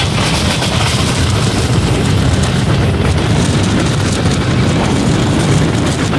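Loud, steady running noise of a rail car at speed, heard through an open window, with wind buffeting the microphone in heavy low rumbling gusts.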